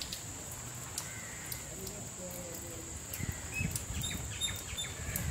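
Outdoor ambience of light rain tapering off, with scattered drip-like ticks over a steady high-pitched tone. A few short bird chirps come in the second half.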